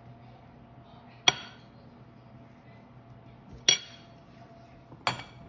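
Kitchenware clinking: three sharp clinks with a short ring, spaced a second or two apart.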